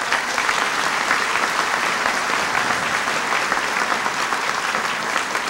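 Audience clapping steadily, a dense even patter of many hands.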